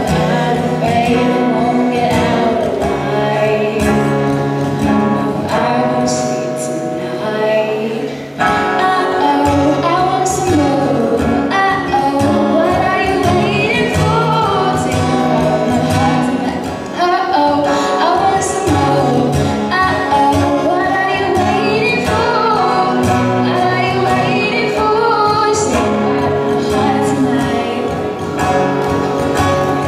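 A girl singing lead into a microphone, accompanied by two acoustic guitars strumming chords.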